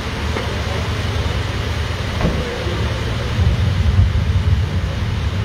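Heavy rain pouring down on pavement, with the low rumble of a fire engine's motor running as the truck reverses slowly; the rumble swells for a second or so near the middle.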